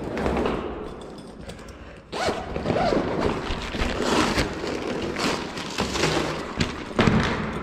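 A zipper being pulled in several short scraping strokes, with a few knocks in between.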